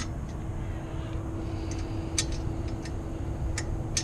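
A few sharp metallic clicks and ticks as hands work at the clamps on a truck's EGR flex pipe in the engine bay, over a steady low rumble and a faint steady hum.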